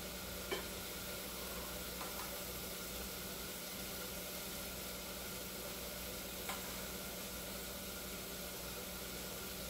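A fork lifting ramen noodles out of a metal pot, with two light clinks of the fork on the pot about six seconds apart, over a steady sizzling hiss.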